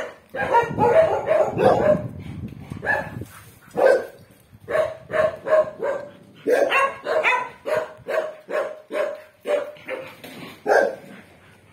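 Dogs barking over and over, a dense overlapping burst in the first couple of seconds, then single barks about every half second that stop shortly before the end.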